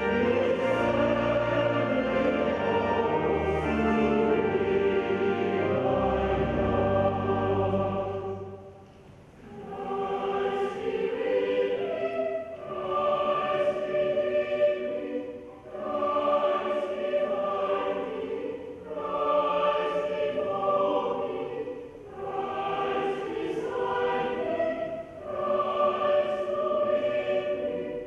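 Organ playing sustained chords with deep bass notes, stopping about eight seconds in. A choir then sings in short phrases with brief pauses between them.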